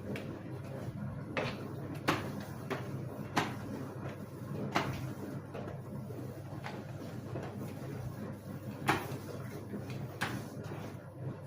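Scattered sharp knocks and clicks, about seven of them spaced irregularly a second or two apart, over a steady low hum.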